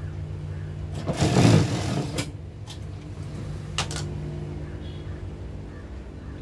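JUKI industrial sewing machine with its motor humming steadily, a short run of stitching about a second in lasting about a second, then two sharp clicks.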